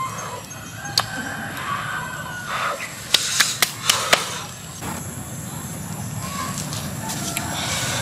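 Chickens clucking, a short pitched call every second or so, with a quick run of sharp clicks a little past the middle. A faint steady high whine runs underneath.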